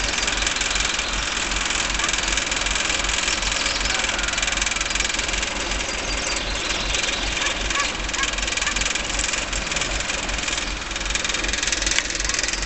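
Engine of a truck-mounted boom lift idling steadily, with an even low throb.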